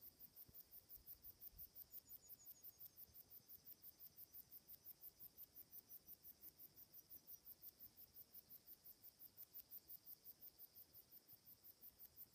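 Faint, high-pitched insect chirping, about five even pulses a second, over a steady high buzz.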